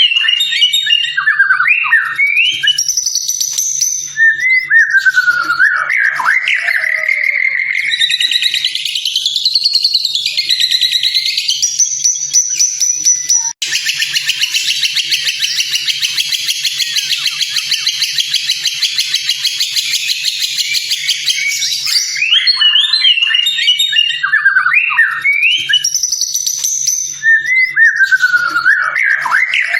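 White-rumped shama (murai batu) singing loud, varied whistled phrases with quick up-and-down glides. In the middle the song gives way, at an abrupt cut, to a long, dense, rapid buzzy trill of about eight seconds before the varied whistles return.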